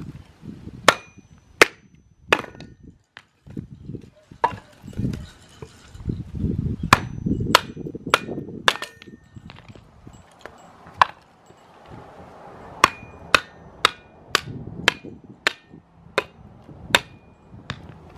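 Hammer repeatedly striking pieces of firewood down onto the blade of a cast-iron kindling splitter, splitting them into kindling: a run of sharp knocks in irregular bursts, some with a short metallic ring, with duller knocks of wood between the strikes.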